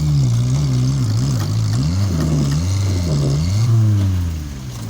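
Off-road vehicle's engine revving up and down repeatedly, its pitch rising and falling several times, then fading near the end.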